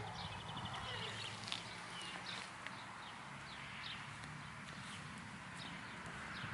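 Small birds chirping in short, high calls, with a quick trill early on, over a steady low hum.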